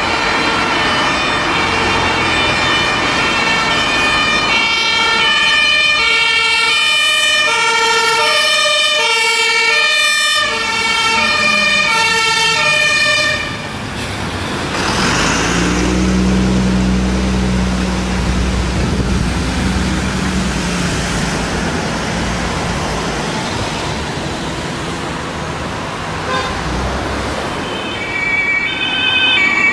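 German two-tone fire-engine siren (Martinshorn) sounding, alternating high and low. After about 13 seconds it cuts out to the diesel engine of a MAN fire engine running close by, and a two-tone siren starts again near the end.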